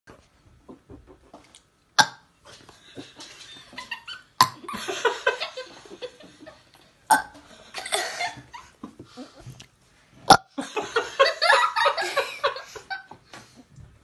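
A five-year-old child burping over and over: about four burps, each starting abruptly, some drawn out for a second or two.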